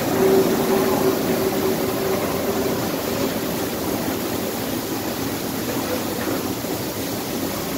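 Retro C component saw and its chain conveyors running: a steady machine hum with a held tone that fades out about three seconds in.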